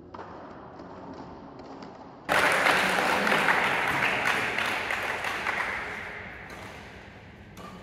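A burst of applause and clapping that starts suddenly about two seconds in and fades away over the next several seconds.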